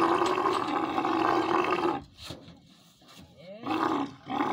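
Female camel roaring in protest while being loaded: one long rough call that breaks off about two seconds in, a short call near four seconds, then another long call starting near the end.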